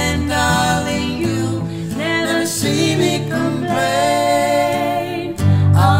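A woman singing a song to guitar accompaniment, with acoustic guitar chords under her voice.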